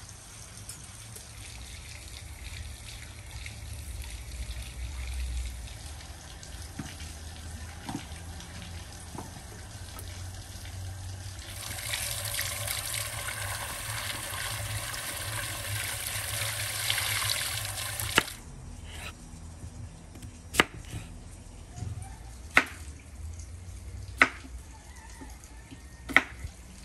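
Water pours steadily from a clay jug's spout onto peeled garlic cloves in a clay dish while hands rinse them, for about six seconds starting near the middle; it stops abruptly. Then a kitchen knife knocks sharply on a wooden cutting board four times, about two seconds apart, as the garlic is cut.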